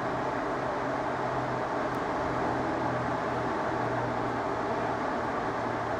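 Steady city street noise, traffic running continuously under a constant low hum, with no single event standing out.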